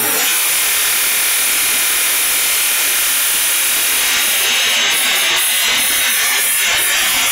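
Automatic rotary polishing machine buffing a stainless steel mug: a steady, loud hissing whir of the wheel on the metal.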